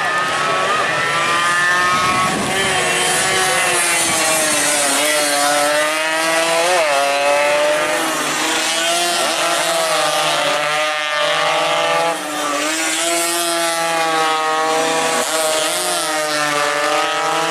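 Two-stroke 116–125 cc underbone race motorcycles running hard at high revs, several engine notes overlapping, rising and falling with throttle and gear changes; the sound dips briefly about twelve seconds in.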